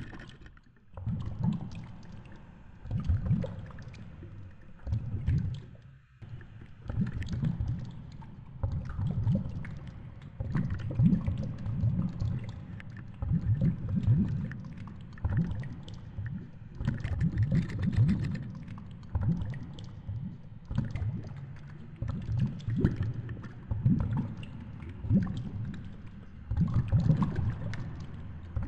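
Muffled underwater rumble picked up by a GoPro in its housing as the fishing rig it rides on is reeled up through deep water. Swelling rushes of water come every second or so, with faint clicks.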